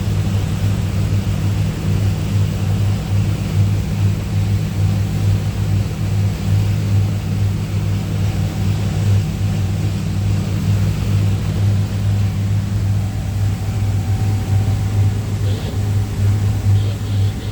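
A boat's engine running steadily underway, a loud, even low drone with a hiss of wind and water above it.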